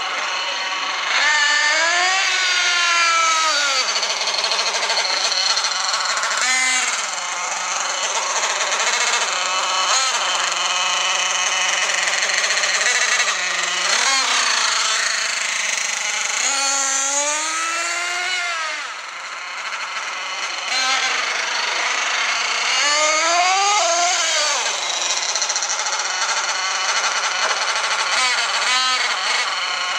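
Small nitro glow engine of a 1/8-scale RC monster truck running with a high, buzzing note, revved up and eased off again and again so its pitch keeps rising and falling.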